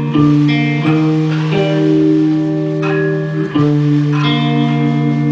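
Live band music led by a guitar picking slow, ringing notes and chords, each new note struck roughly every second over long sustained tones.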